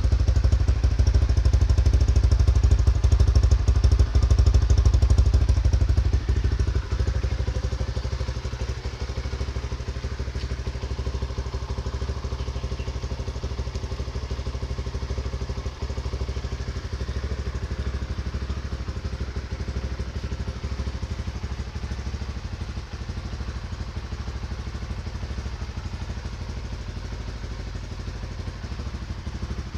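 Honda RS150 Fi motorcycle's fuel-injected 150cc single-cylinder engine running steadily at idle. It is louder for the first six seconds, then a little quieter and even for the rest.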